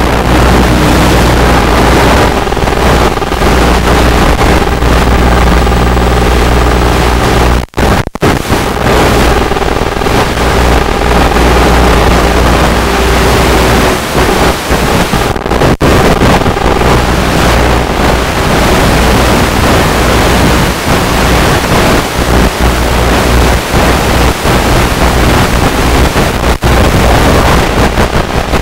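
Loud, steady rushing noise of wind and static on a small RC plane's onboard FPV camera audio, with a faint hum that wavers in pitch underneath. The sound drops out briefly about 8 seconds in and again around 15 seconds.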